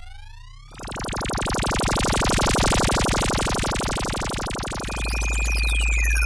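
FM synthesizer sound effects. A sweeping tone fades out, then about a second in a harsh buzzing tone with a rapid even pulse swells up and holds for about four seconds. Near the end it gives way to a deep bass drone under a steady high tone, with pitch sweeps falling across it.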